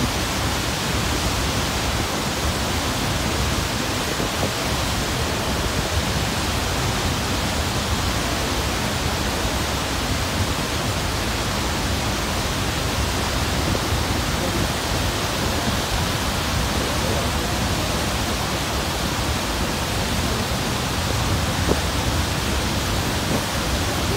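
Niagara Falls: the water of the great waterfall pouring down in a steady, unbroken rush of noise that holds at one level throughout.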